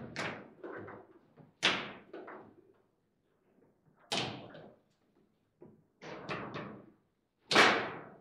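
Table football table in play: the hard ball is struck by the players on the rods and bangs against the table, giving sharp knocks every second or two. There is a quick run of three knocks about six seconds in, and the loudest knock is about seven and a half seconds in.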